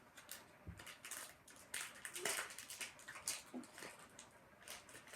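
Faint crinkling and crackling of a toy's plastic and foil wrapping being handled and torn open, in scattered irregular crackles.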